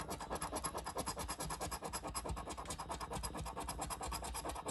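A coin scratching the coating off a scratch-off lottery ticket, in quick, even back-and-forth strokes, about eight or nine a second.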